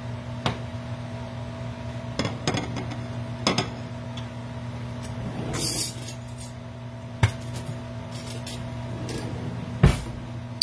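Stainless-steel pot lid and cookware clinking and knocking in a scattered series, with a brief scrape about halfway and a loud knock near the end, over a steady low hum.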